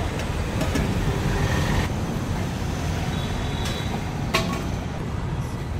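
Steady rumble of passing road traffic, with a single sharp clink about four seconds in.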